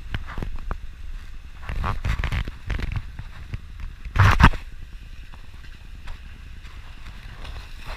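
Wind buffeting the microphone of an action camera mounted on the outside of a moving vehicle, over a low rumble of tyres on packed snow and slush. There are uneven louder rushes, the loudest about four seconds in, then it settles to a steadier rumble.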